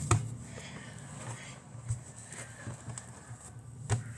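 Faint handling sounds of hands kneading homemade flour-and-water slime greased with Vaseline, with a sharp click just after the start and another near the end, over a low steady hum.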